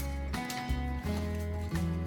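Background music: a melody of plucked notes over a steady bass.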